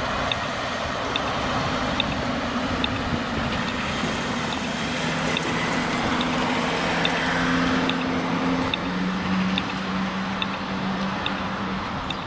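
Narrow-gauge Bogestra M-type tram drawing slowly closer, its drive giving a low hum that steps up and down in pitch from about five seconds in, over a bed of road traffic noise. A faint tick repeats at an even pace, somewhat less than once a second.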